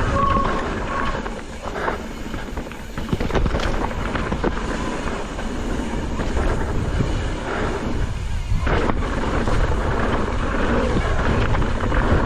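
Wind rushing over an action camera's microphone on a mountain bike at speed downhill, with tyres running on a dirt trail and the bike knocking and rattling over bumps.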